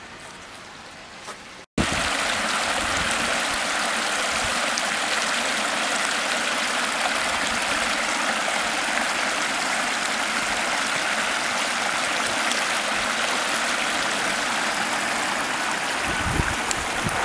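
Shallow stream running, a steady rush of water that starts suddenly about two seconds in, after a faint quiet background. A few low bumps on the microphone near the end.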